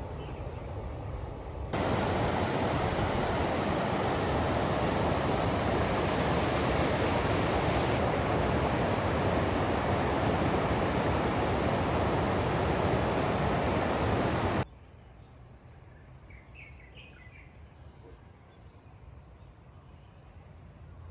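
Loud, steady rushing of stream water, cutting in sharply about two seconds in and cutting off sharply about two-thirds of the way through. Around it is quieter outdoor ambience, with a few short bird chirps near the end.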